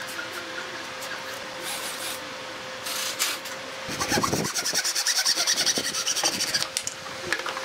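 Handsaw cutting through a pallet-wood slat, a run of quick, even back-and-forth strokes starting about four seconds in and stopping about three seconds later.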